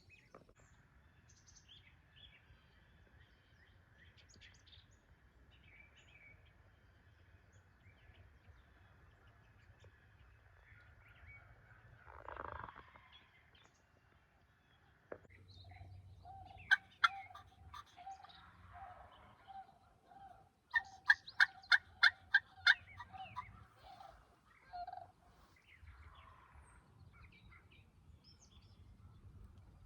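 Wild turkey yelping: two runs of sharp, raspy repeated notes about a second in the middle and a louder run of about nine notes near the end, at roughly four a second. Small birds chirp faintly in between.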